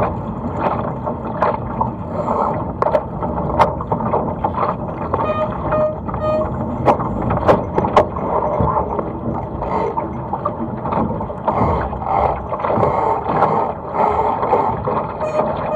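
Water rushing and splashing against the hull of a Laser sailing dinghy under way, with wind on the microphone and frequent sharp taps and knocks. Three short beeps sound about five to six seconds in.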